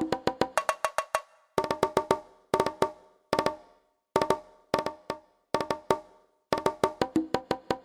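Yamaha DTX700K electronic drum kit played with one of its unusual percussion voices, a short, clicky, pitched hit like a wood block. The hits come in quick flurries separated by brief pauses. Between the flurries the output is completely silent.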